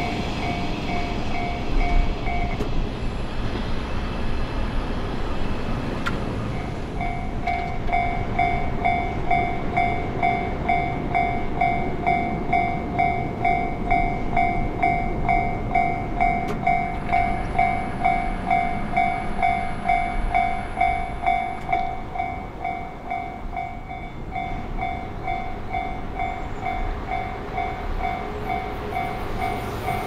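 Electronic warning bell of a Japanese railway level crossing ringing, a repeated two-tone ding about twice a second, over a steady rumble. It stops briefly a few seconds in, then rings on.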